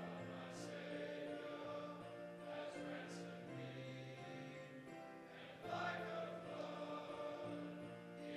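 Choir singing a hymn over instrumental accompaniment, in held notes that change about once a second.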